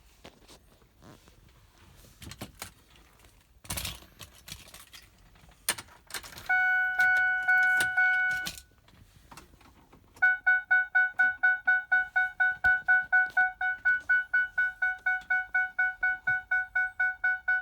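2005 Ford F-150 dashboard warning chime. After a few faint clicks and rustles, it sounds as one steady electronic tone for about two seconds. From about ten seconds in it repeats as a rapid chiming, about five dings a second.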